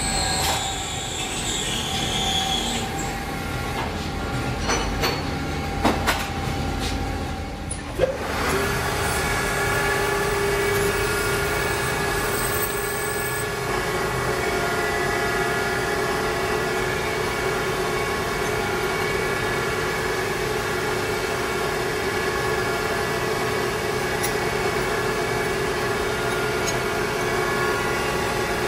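Metal lathe running with a steady whine from about eight seconds in, spinning an engine valve held in its collet. Before it, a few scattered clicks and knocks.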